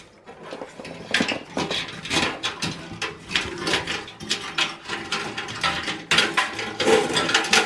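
Sheet-steel chassis of an HP ProDesk 600 G1 small-form-factor PC rattling and clicking under handling, with plastic parts clicking as a clip holding the front power switch and LED module is worked loose. Many quick clicks and knocks throughout, busiest near the end.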